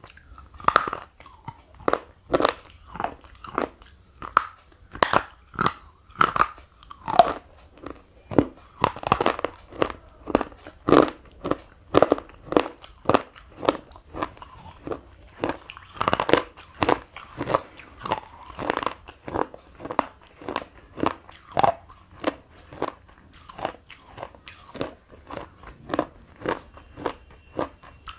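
Thick slate pencil being bitten and chewed: a steady run of crunches, about two a second.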